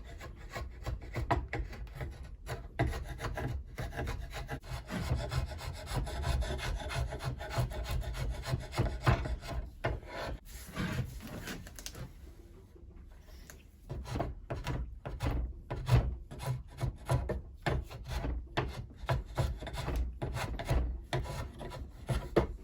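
Repeated scraping strokes of a hand tool working down the wooden handle of a cant hook to fit it, with a short pause about halfway through.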